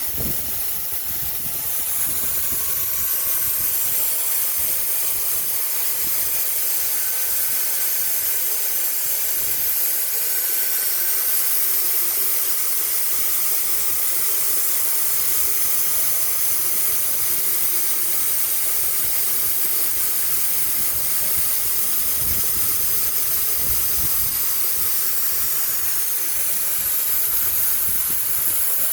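Hot-air welder for polypropylene plastic blowing a steady hiss, with a faint steady whine under it.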